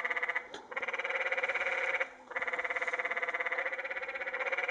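Canyon tree frogs calling: a loud, rapid pulsed trill, broken by two short pauses about half a second and two seconds in.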